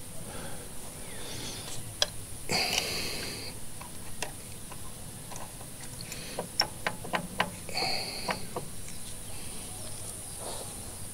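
Sharp metal clicks and clinks of a grease gun's hose coupler being worked onto the zerk fitting of a mini excavator's track tensioner, with a quick run of clicks about two-thirds of the way through.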